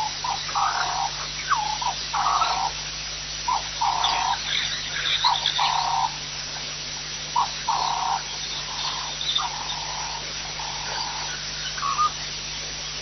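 An animal calling over and over, each call a short rising note followed by a steady mid-pitched note about half a second long. The calls come roughly every one and a half seconds and grow fainter in the second half.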